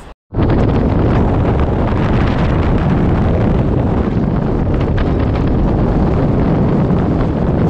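Loud, steady rush of wind buffeting the microphone, as on a boat moving at speed. It cuts in suddenly after a brief silence.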